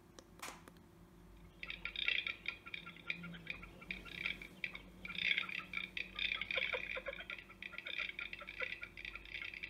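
Electronic game caller playing a recorded bird call through its speaker: a short click, then from about a second and a half in a dense, rapid chatter of many short calls.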